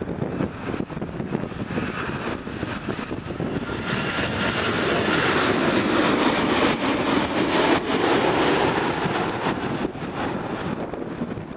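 Boeing 737 jet airliner on landing approach passing low overhead, its engine noise swelling to a peak around the middle and easing off as it goes past.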